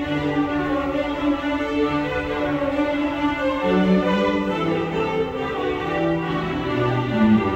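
School string orchestra of violins and cellos playing a classical piece: a long held note over the first half, then the lower strings move through changing notes.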